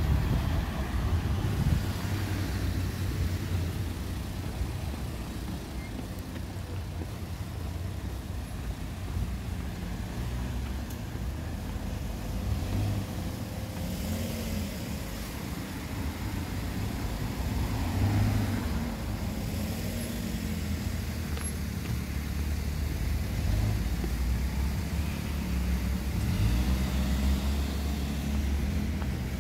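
Street traffic: cars passing by, a steady low rumble that swells louder about halfway through and again near the end.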